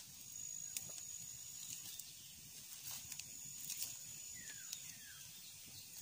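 Small wood fire crackling with scattered sharp pops. A faint steady high-pitched whine runs under it and stops about five seconds in, with a couple of short falling chirps.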